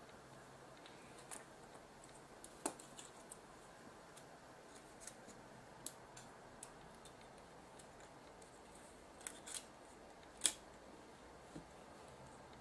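Faint, scattered clicks and taps of small metal and plastic parts as a camcorder's tape-deck mechanism is handled and a chassis piece is fitted onto it. The taps come singly, a few seconds apart, and the sharpest comes about ten seconds in.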